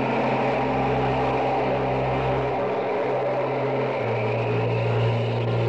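Rocket launch: the engine's exhaust gives a loud, even rushing noise. Under it runs a low steady hum that grows louder about four seconds in.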